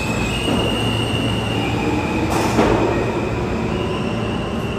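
New York City subway train moving through an underground station, a steady rumble with its wheels squealing in high tones that shift up and down in pitch. A brief sharp noise cuts through about halfway through.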